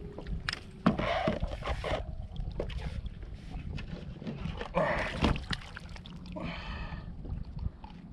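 Wind rumbling on the microphone, with a sharp knock, scuffing and splashy rustles as a freshly landed snapper is handled on a sit-on kayak, and a short buzzy sound about six and a half seconds in.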